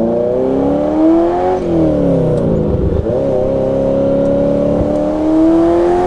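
Ferrari 308's V8 running through a freshly remade custom exhaust, heard from the open cabin. The engine climbs in revs, falls away for about a second and a half, then pulls steadily up again.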